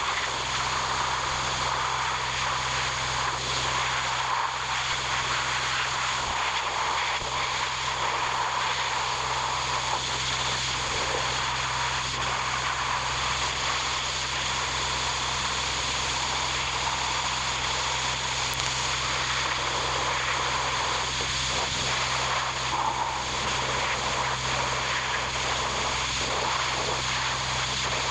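A steady machine drone at constant speed, with a low hum beneath a wide rushing noise and no change in pace.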